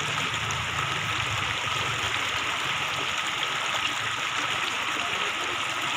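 Floodwater flowing: a steady, even rush of running water.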